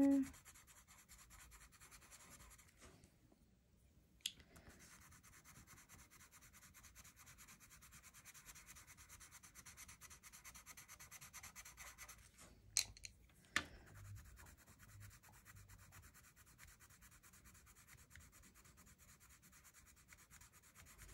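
A colored pencil rubbed back and forth on paper in quick, continuous strokes, blending one color into another. It makes a faint, steady scratching that stops briefly a few seconds in. Sharp light ticks come once after the pause and twice about halfway through.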